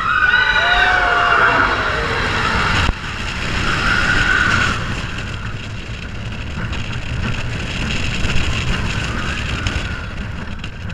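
Expedition Everest roller coaster train running at speed along its steel track, with a steady rumble and wind rushing over the microphone. High wailing cries, falling in pitch, sound over the first few seconds and cut off suddenly, with another brief one about four seconds in.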